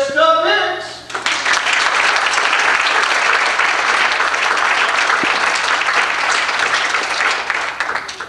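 Audience applauding for about seven seconds, starting about a second in and dying away near the end. It is opened by a short rising voiced call.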